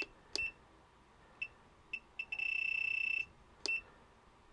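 ToAuto DS882 soldering station's keypad beeper: several short high beeps, one steady beep about a second long, then one more short beep with a light click, as the down button is pressed to lower the set temperature. Each beep confirms a button press.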